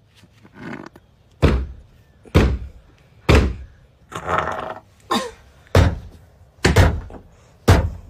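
A fist pounding on the door of a plastic portable toilet: about six heavy thuds, roughly one a second.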